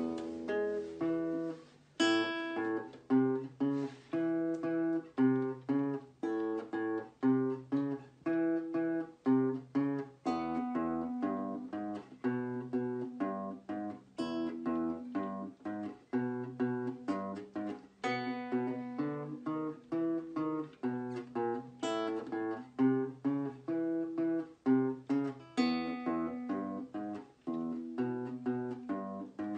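Solo classical nylon-string guitar playing a piece of plucked notes and chords over bass notes, in a steady, lively rhythm.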